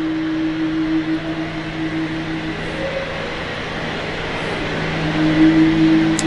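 Steady mechanical hum over a continuous rushing noise from the aquarium's water-handling machinery. A higher humming tone fades about halfway through and comes back near the end.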